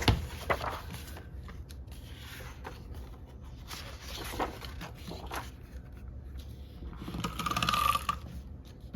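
Paper planner pages and disc-bound rings being handled: scattered scrapes and clicks, with a longer, louder rasping stretch about seven seconds in.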